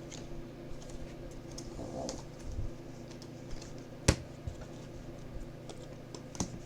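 Quiet, scattered light clicks and handling noises from trading cards and packs being handled, with one sharper click about four seconds in, over a faint steady hum.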